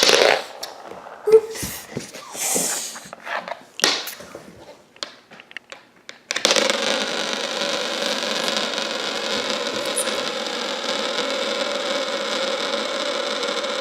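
A homemade marble spinner of glass marbles joined with hot glue: a few clicks as it is handled, then about six seconds in it is set spinning and gives a steady whir at one constant pitch.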